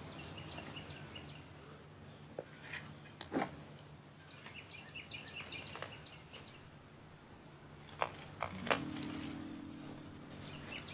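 Faint garden ambience with small birds chirping and a few sharp clicks, the last three close together from hand pruners snipping bok choy stems. Soft music comes in near the end.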